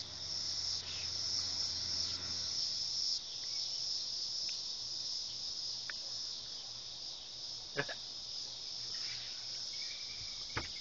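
Crickets chirring steadily as a high, even trill, with two short clicks, one about eight seconds in and one near the end.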